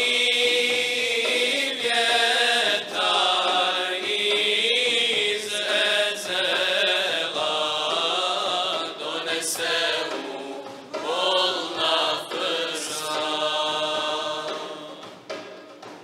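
Male voices singing an ilahija, a Bosnian Islamic devotional hymn, in a slow melody with wavering ornaments on held notes, with brief breaths between phrases.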